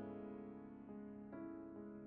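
Slow, quiet keyboard music, piano-like: held chords slowly fading, with a few new notes coming in just past the middle.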